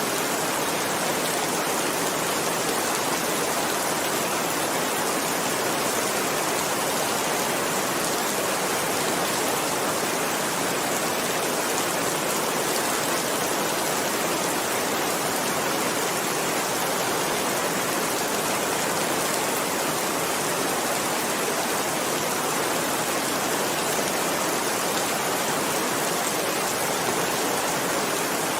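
Heavy rain falling steadily, a dense, even hiss of rain with no distinct drops, thunder or changes.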